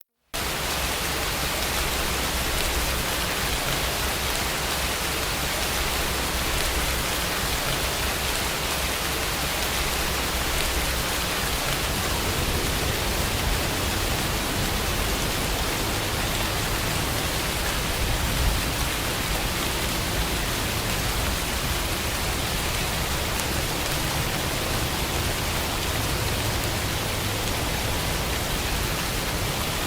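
Steady rain, an even hiss of falling rain that starts abruptly a moment in and holds at a constant level.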